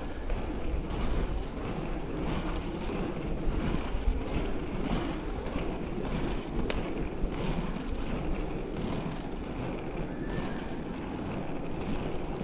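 Wind buffeting the microphone over the steady rumble of inline-skate wheels rolling on rough pavement.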